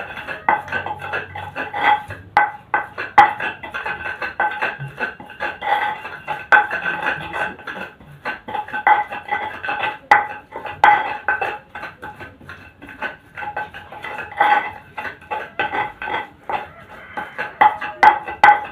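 A pestle (ulekan) pounding and grinding spice paste in a stone mortar (cobek): rapid, irregular knocks and scrapes, the mortar ringing with each strike.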